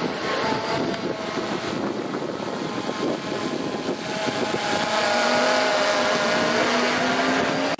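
A distant engine drone that comes in about four seconds in and slides slowly lower in pitch, over a steady rush of wind and outdoor background noise.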